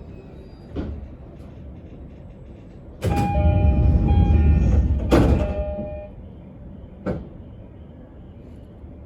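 E231-1000 series commuter train running, heard from inside the car: a steady low rumble of wheels on rail with a few sharp single clicks. About three seconds in, a loud rush of rumble and steady tones lasts about three seconds, then falls back to the quieter running sound.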